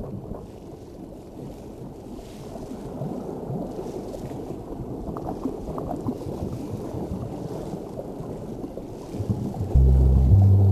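Underwater camera sound: a steady muffled rumbling hiss with scattered bubbling, as from scuba divers' exhaled regulator bubbles. Near the end, music with a deep bass line comes in and is louder.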